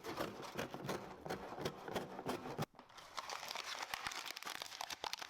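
Packaging being handled: a dense run of small irregular crinkles and crackles, with a brief pause about two and a half seconds in.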